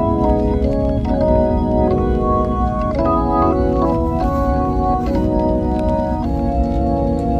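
Background music of held, organ-like keyboard chords, changing every second or two.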